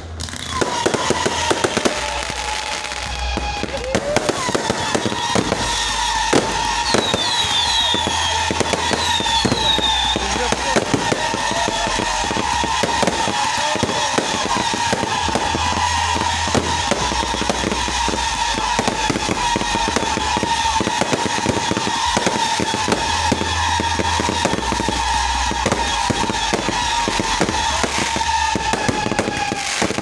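Fireworks going off in a rapid, continuous barrage of cracks and bangs, with a steady whistle-like tone running underneath. A few short whistles sweep past about a third of the way in.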